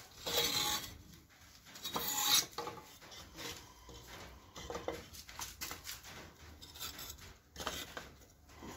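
Fired clay bricks scraping and rubbing on a concrete floor as they are lifted and set down by hand. A few gritty scrapes, the loudest near the start and about two seconds in.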